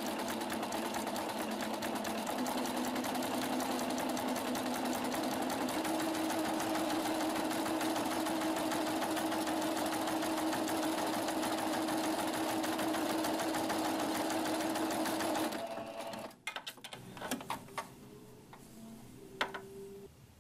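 Singer Starlet 6680 home sewing machine running steadily, sewing a stretch stitch that feeds the fabric forward and back. It stops about three-quarters of the way through, leaving only a few faint clicks.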